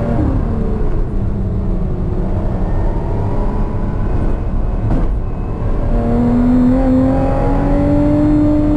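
Lotus sports car's engine heard from inside the cabin at speed: the engine note falls as the car slows for a bend, a short click comes about halfway through, then the revs climb steadily as it accelerates out. Constant road and tyre rumble runs underneath.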